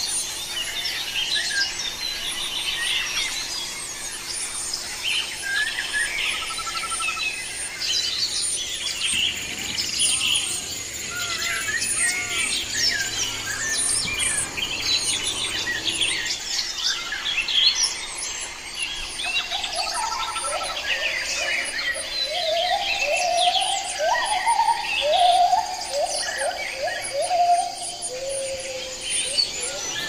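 Many birds chirping and calling at once in a dense, continuous chorus of short high chirps. In the second half a lower, faster run of chirps joins for several seconds.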